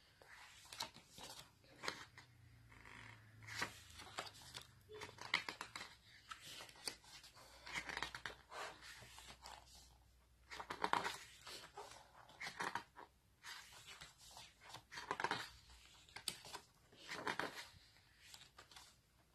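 Pages of a thick glossy photobook being turned one after another: short, faint paper rustles and swishes every second or two.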